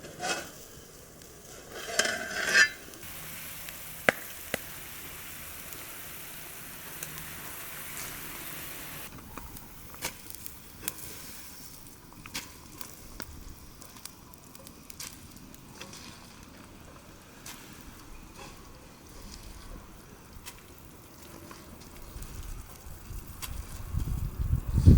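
Food sizzling in hot oil in a pan over a wood fire: a steady hiss that starts about three seconds in and cuts off about nine seconds in. It is followed by scattered clicks and knocks of utensils, with a short loud clatter about two seconds in and heavier low thumps near the end.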